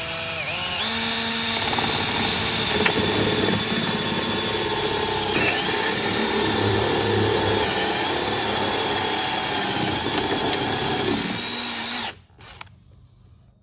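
Electric drill turning a 1.5-inch Forstner bit and boring a hole into wood. The motor whine holds steady, with the bit cutting into the wood from about two seconds in. The drill stops suddenly near the end.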